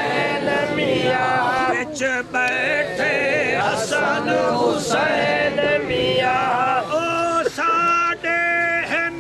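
A man's voice singing a devotional verse in long, drawn-out notes that waver up and down; over the last couple of seconds the notes are held steadier.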